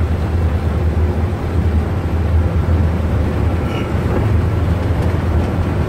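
Airbus A330-300 rolling along a runway, heard inside the cockpit: a steady low rumble of engines and runway noise.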